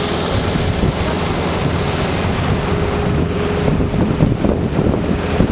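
Wind buffeting the microphone over the running of a motor cruiser underway on a canal, with water along the hull. The buffeting grows heavier and more uneven in the second half.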